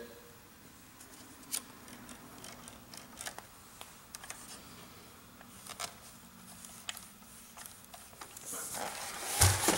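Faint scattered clicks and light handling noise from small parts being moved, with rustling that builds near the end.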